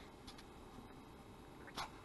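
Faint handling noises: a few soft rustles and clicks from fingers working a small hook out of a small perch lying on a fabric jacket.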